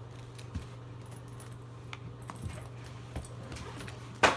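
Handling noise from small toys and packaging: a few light clicks and taps, then one sharp, louder knock near the end, over a steady low hum.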